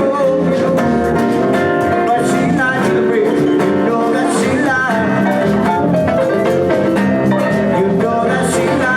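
A live band playing, with guitar and drums and a voice singing or held notes over the top.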